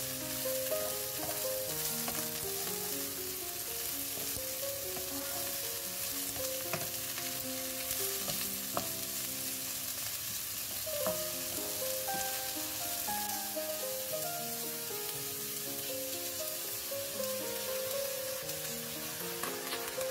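Vegetables sizzling in a hot nonstick wok as they are stirred and turned with a wooden spatula, with a few clicks of the spatula against the pan. Soft background music plays under the sizzle.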